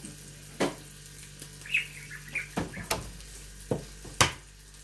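Sharp clinks and knocks of dishes and utensils being handled, the loudest a little past four seconds, over the faint sizzle of sausages frying on an electric raclette grill. A caged parakeet chirps twice around the middle.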